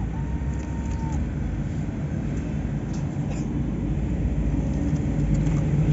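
Steady low rumble of road traffic and an engine, its hum growing a little louder near the end, with a brief thin tone in the first second.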